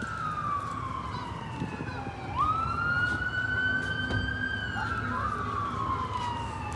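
Fire department emergency vehicle siren sounding a slow wail. Its pitch falls steadily for about two seconds, jumps quickly back up, holds for a couple of seconds, then falls again, making one rise-and-fall cycle about every five seconds. A low traffic rumble runs underneath.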